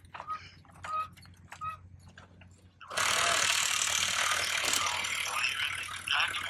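A sudden burst of loud, rapid mechanical rattling starts about halfway through and lasts about three seconds before easing off.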